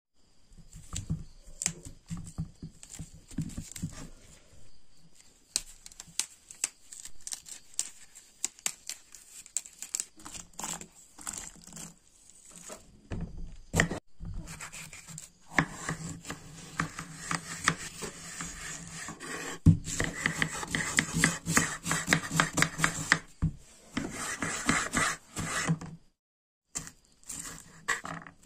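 Knife cutting vegetables on a bamboo cutting board: scattered sharp knocks of the blade on the wood for the first half, then a long stretch of dense, rapid cutting and scraping, with a short break near the end.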